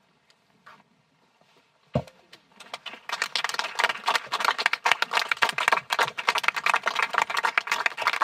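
A single thump about two seconds in, then a small audience breaking into applause about a second later and clapping steadily on.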